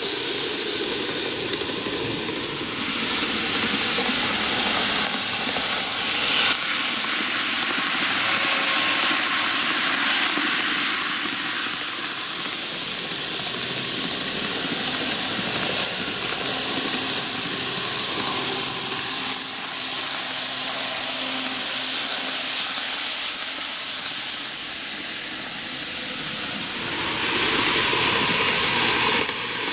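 N-gauge model electric train running round its loop of TOMIX track: a steady whir of the motor and wheels on the rails. It fades somewhat as the train runs along the far side, then grows louder again near the end as it comes back round toward the microphone.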